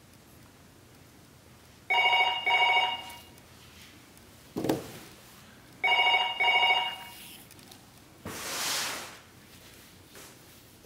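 Telephone ringing: two double rings about four seconds apart. A short low sound falls between them, and a brief hiss follows a couple of seconds after the second ring.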